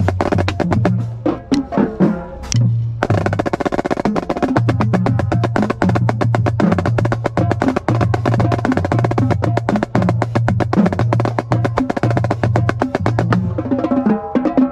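Marching snare drum playing a fast cadence of rapid strokes and rolls, with low drum notes underneath. The playing breaks off briefly about three seconds in and again shortly before the end.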